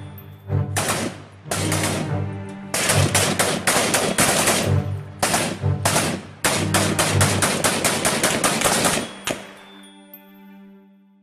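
Bursts of automatic gunfire in a firefight: several short bursts, then a long rapid run of shots that stops about nine seconds in.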